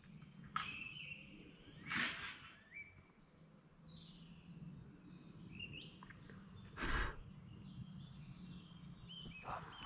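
Woodland birds singing faintly, with short phrases and chirps. A low steady hum runs underneath, and three brief noises break in, the loudest about seven seconds in.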